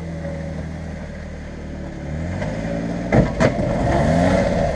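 Jeep Wrangler's engine running low and steady as it crawls over rock, then revving up in rising pulls from about two seconds in. Two sharp knocks come just after three seconds.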